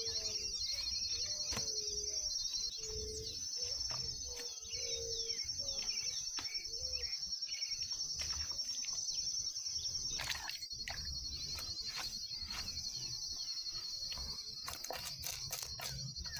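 Insects buzzing steadily in a high pitch, with birds chirping and calling through the first half. A series of sharp clicks comes near the end.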